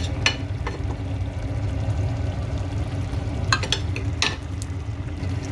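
Spoon stirring raw chicken pieces and spices in a cooking pot, knocking and scraping against the pot a few times, over a light sizzle and a steady low hum.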